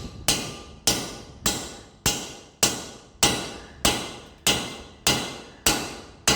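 Hammer blows driving a new wheel stud into a semi truck's wheel hub: eleven evenly spaced strikes, a little under two a second, each with a short ring dying away after it. The stud has not yet bottomed out.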